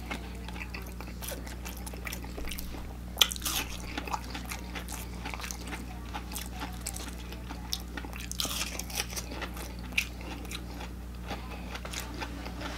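Close-miked chewing of crispy fried chicken and crinkle-cut fries: irregular crunching and crackling, with the sharpest crunch about three seconds in, over a faint steady low hum.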